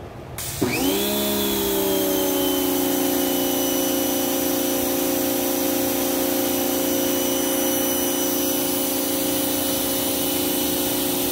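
Giraffe Tools Grand Falls electric pressure washer starting up about half a second in: its motor whine rises quickly in pitch and settles into a steady hum, with the hiss of water spraying from the gun. It is pumping at about 1700 PSI.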